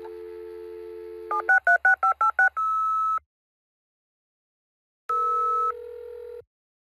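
Telephone line sounds of a dial-up modem connection: a steady dial tone, then a rapid string of touch-tone digits dialled about a second and a half in, then a steady beep. After about two seconds of silence comes another steady tone that drops to a lower one.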